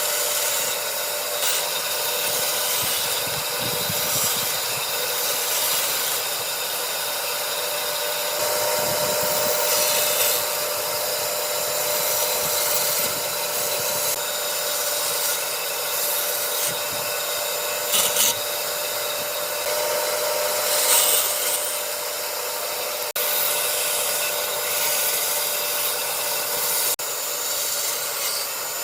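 A power tool's motor running steadily with a constant whine while it scrapes and grinds against wood, with a few brief harsher scrapes along the way.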